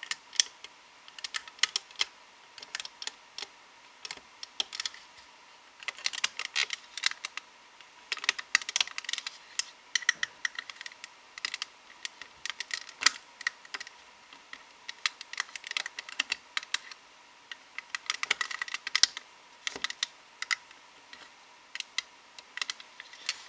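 Metal crochet hook and fingers working rubber loom bands on a clear plastic loom: irregular quick clicks and taps of the hook against the plastic pegs, coming in little flurries as each band is pulled over.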